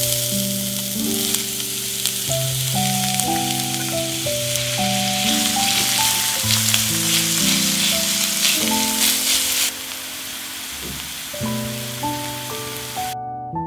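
Chopped onions sizzling as they fry in hot oil in a pan: a steady crackling hiss that drops in level about ten seconds in and cuts off abruptly just before the end.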